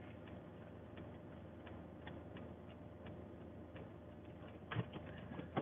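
Car turn-signal or hazard-light relay ticking faintly and steadily, heard from inside the cabin, with a couple of soft knocks near the end.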